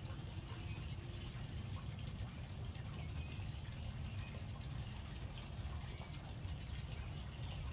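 Small birds chirping in the background, short high notes a second or so apart, over a steady low rumble.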